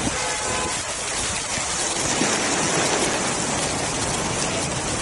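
Heavy rain pouring steadily onto deep floodwater, a dense even hiss.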